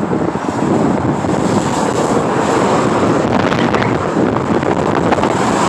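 Steady noise of highway traffic, heavy trucks among it, passing close by, with wind on the microphone.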